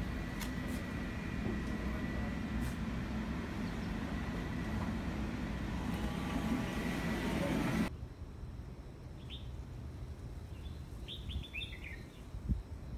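Peak Tram funicular car running past close by: a steady low rumble with a faint steady whine. About eight seconds in it cuts off abruptly, and a few short bird chirps follow.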